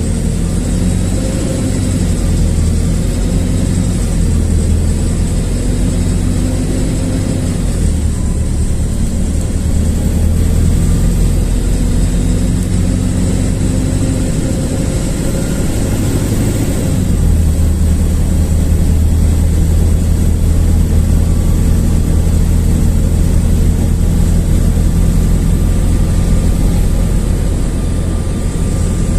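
LiAZ-4292.60 city bus driving along: steady diesel engine drone and road noise, with the engine note changing about two-thirds of the way through, and a faint high whine above it.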